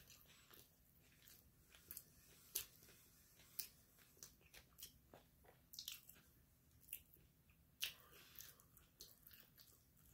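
A person chewing a mouthful of potato-chip sandwich close to the microphone: faint crunching and short, sharp mouth clicks at irregular intervals, the loudest about two and a half seconds in and just before eight seconds in.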